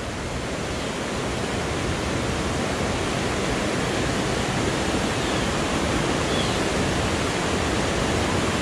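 Steady rush of river water, an even noise that holds without a break.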